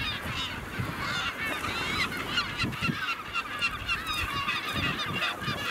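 Seabird colony calling: many birds giving short calls at once in a dense, overlapping chorus that never pauses.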